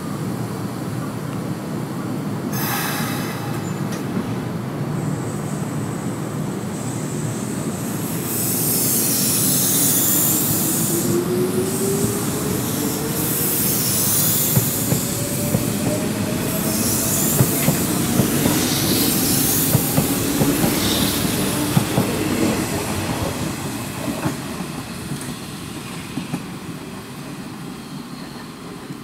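Electric train pulling out and accelerating: a motor whine climbs steadily in pitch while high-pitched wheel squeal and rail-joint clicks come and go, then the sound fades as it moves away.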